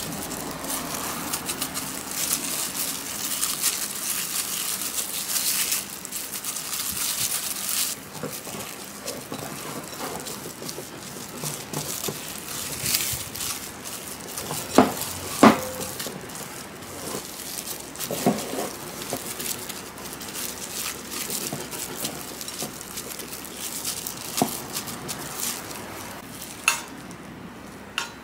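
Wire whisk stirring and scraping crumbly almond-flour tart dough around a glass bowl, a dry rustling scrape, followed by a plastic-gloved hand pressing the dough together. A few sharp knocks sound around the middle.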